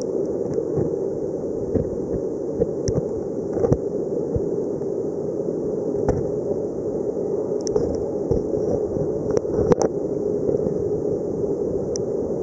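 Underwater ambience: a steady muffled rushing noise with about a dozen scattered sharp clicks, a few close together about three quarters of the way in, typical of the snaps of alpheid snapping shrimp.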